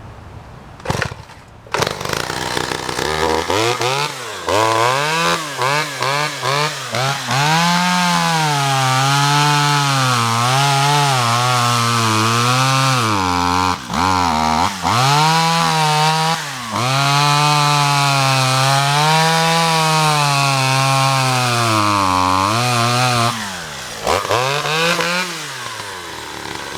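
A 1986 Sachs Dolmar 100 two-stroke chainsaw starts about two seconds in after a couple of short bursts, then runs with its engine speed rising and falling over and over as the throttle is worked and the saw is put under load in wood. It keeps running well under load.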